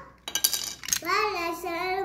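Hard plastic toy-ambulance parts clicking and snapping as they are handled and fitted together. About a second in, a pitched, melody-like sound starts and steps from note to note.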